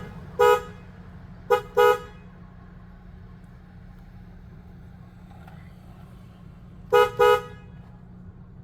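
Car horn tooted in short blasts to get someone's attention: one toot, then a quick pair, then after a pause of about five seconds another quick pair near the end.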